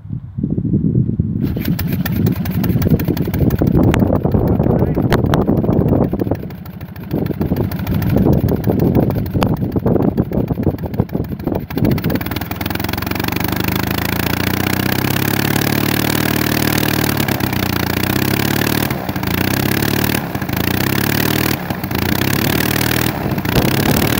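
Half-VW twin-cylinder boxer aircraft engine (a cut-down 1970 Beetle engine with twin carbs) driving a large wooden propeller, catching about half a second in after being hand-propped on its first run. For about twelve seconds it runs rough and uneven, then settles into a steady run whose pitch shifts slightly, with a few brief dips near the end.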